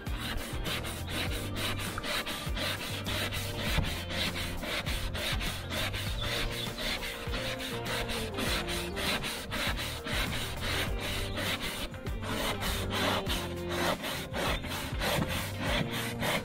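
A wetted melamine-foam boat eraser pad is scrubbed hard back and forth on a plastic kayak deck in quick, repeated rubbing strokes, working at deep stains.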